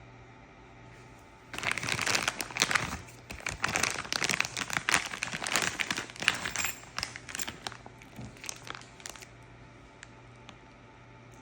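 Packaging crinkling and rustling as it is handled, starting about a second and a half in, busiest for several seconds, then thinning to scattered crackles.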